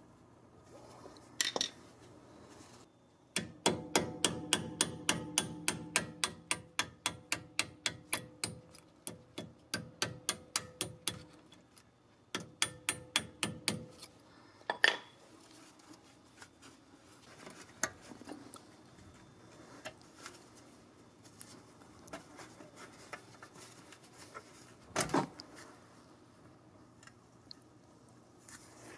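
Rapid, light hammer taps of metal on metal, about four a second with a ringing tone, driving a brake pad retaining pin into a Mercedes-Benz AMG front brake caliper with a punch. A second short run of taps follows, then a few single strikes.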